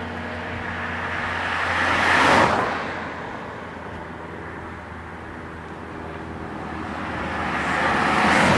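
Two cars passing by on the road, one after the other. The first swells to a peak about two seconds in and fades away, and the second builds up near the end.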